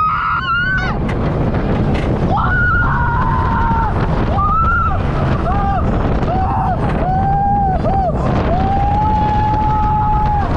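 Riders on the Iron Gwazi roller coaster screaming in a string of long, high screams, the last held for about two seconds near the end, over a heavy rumble of wind buffeting the microphone as the train speeds through the course.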